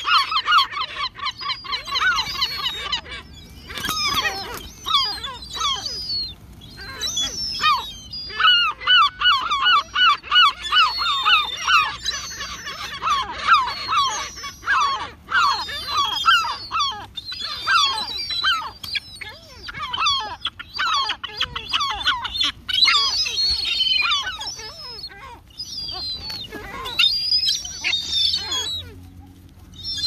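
A crowd of greylag geese and gulls calling, a dense run of short repeated calls with a few brief lulls.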